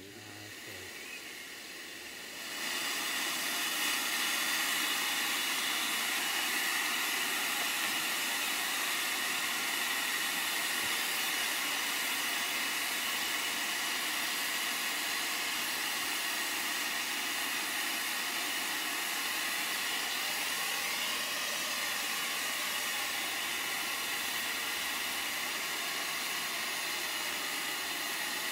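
Steady hiss of steam escaping from beneath a coal-fired 5-inch gauge live steam model locomotive, starting about two and a half seconds in and holding even, with no chuffing beat.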